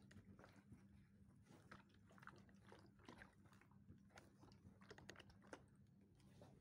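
Faint rustling and light clicks of a steam iron being slid, lifted and set down on fabric on an ironing board, over a low steady hum.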